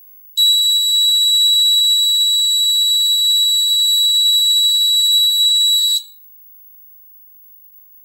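Piezo buzzer of a Hall-effect door alarm sounding one steady, high-pitched tone for about five and a half seconds, starting abruptly about half a second in and cutting off sharply about six seconds in. The alarm has tripped because the magnet was taken away from the Hall sensor, and bringing the magnet back silences it.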